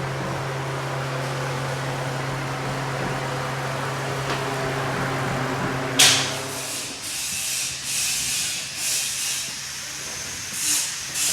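A steady machine hum, then a sudden loud hiss about halfway through, followed by several shorter hissing bursts roughly a second apart, like air or spray being let out in spurts.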